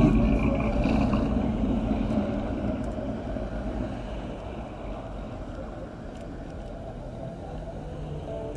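A vehicle's engine and tyres as it drives past close by, loudest at the start and fading as it moves away, leaving the low, steady rumble of a slow line of cars.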